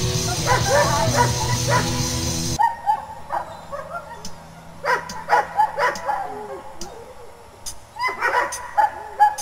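Background music for the first couple of seconds, which cuts off suddenly; through it and after it a dog gives short, high yips and whines, one after another, in small clusters.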